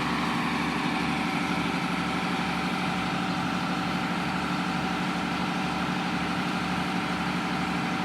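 A steady idling engine hum with a slow, even throb in the low end, unchanging throughout.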